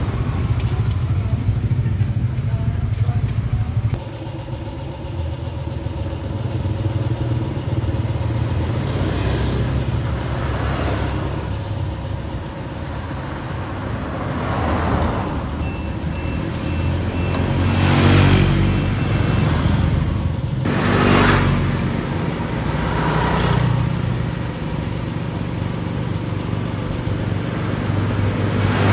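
Motorcycle engine running with a steady low hum, swelling louder several times in the second half, loudest twice about two-thirds of the way through.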